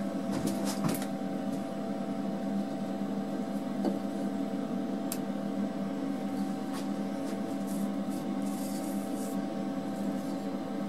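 A steady mechanical hum with several fixed tones from a machine running in the workshop. Over it come a few light clicks and a short hiss near the end as a machined aluminium part is handled.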